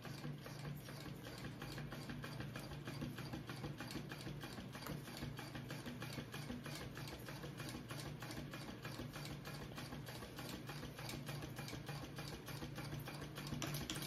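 Kingmax GC0302 industrial sewing machine stitching a seam, a steady fast run of stitch ticks over the low hum of its motor.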